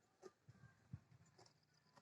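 Near silence, with a few faint, short clicks and taps.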